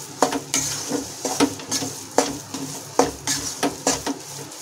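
Spatula scraping and knocking against a metal kadhai while stirring wheat flour roasting in ghee, in short irregular strokes about three a second.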